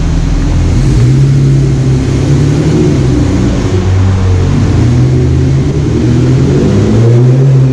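BMW 1 Series E88 convertibles' four-cylinder petrol engines and exhausts at low speed, heard from the open cabin with the roof down: a steady low engine note that rises and falls in pitch a few times with the throttle.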